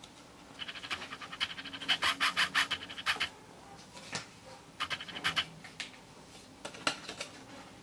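Rapid crackling and rustling of the album's paper and plastic packaging as it is handled, in three spells: a long one in the first few seconds, then two shorter ones.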